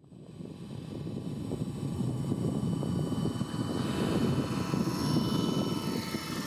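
Electric RC scale helicopter (Vario Jet Ranger) in flight: the main rotor makes a dense rumbling thrum, with a thin high whine from the electric motor and gearing. It grows louder over the first few seconds, and the whine is clearest in the second half.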